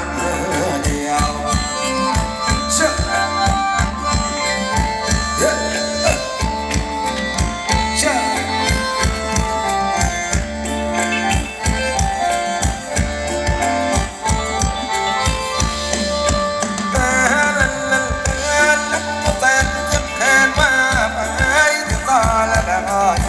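Thai luk thung ramwong dance music from a live band, with a steady, quick drum beat under held reed-like melody notes and singing over the last several seconds.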